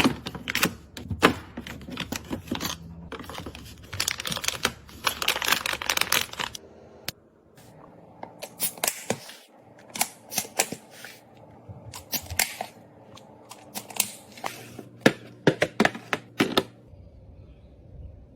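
Snack packets and containers being handled and set down: a run of sharp clicks and taps with a dense stretch of crinkling about a quarter of the way in, stopping shortly before the end.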